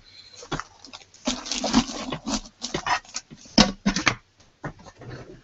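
Loose computer RAM sticks clattering in an amber plastic tub as they are dropped in and moved about by hand, making a run of irregular clicks and rattles. The loudest knocks come about a second and a half in and near four seconds in.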